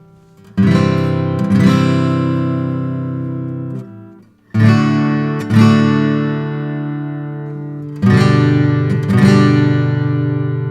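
Martin OMJM acoustic guitar with an Engelmann spruce top, full chords strummed and left to ring out. There are three pairs of strums, the two in each pair about a second apart, with a few seconds of fading sustain between pairs.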